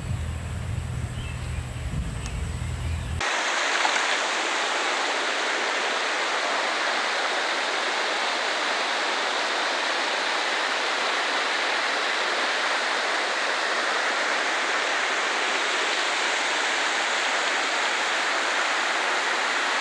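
Steady rush of river rapids and a waterfall, water churning over rocks, starting abruptly about three seconds in. Before that, a low rumble of wind on the microphone.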